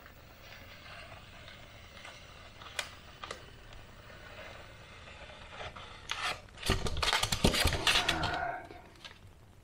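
Hot-knife foam cutter working through the expanded polystyrene foam of an ICF block. There are faint crackles and a few sharp clicks, then about seven seconds in a loud stretch of foam scraping and crunching, lasting under two seconds, as the cut section comes loose.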